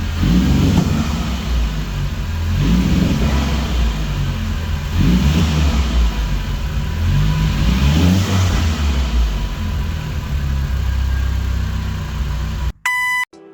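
VW Polo GTI's 1.8-litre turbo four-cylinder blipped four times from idle. The N249 valve is deleted and an open cone filter is fitted, set up to make turbo flutter on lift-off. A short electronic beep near the end.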